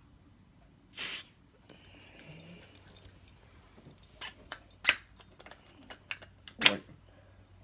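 Handling noise: a scatter of light clicks and clinks, with two short bursts of hiss-like noise, one about a second in and one near the end.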